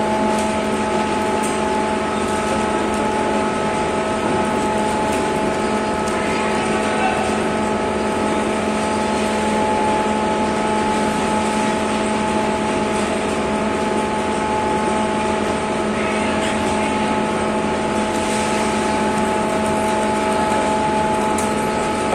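A steady machine drone: several fixed tones over a hiss, unchanging in level.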